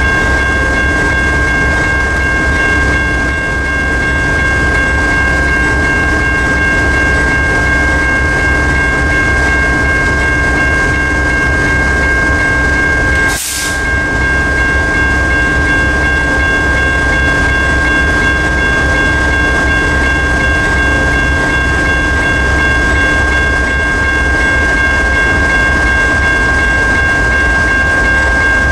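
General Signals Type 1 electronic crossing bell ringing steadily as the crossing's warning signals run, over the low, steady idle of a stopped GE ES44AH diesel locomotive standing in the crossing. A brief click and dip in level comes about halfway through.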